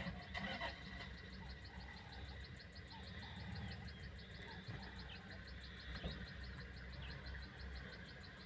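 An insect chirping in a fast, even train of high pulses, faint, over a low steady rumble.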